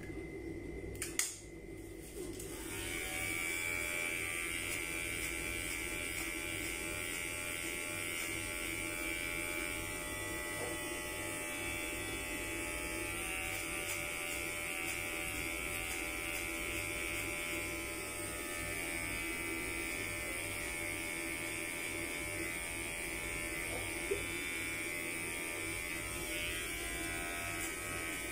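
Electric hair clippers running with a steady buzz while cutting hair. A sharp click comes about a second in, and the buzz starts about a second after it.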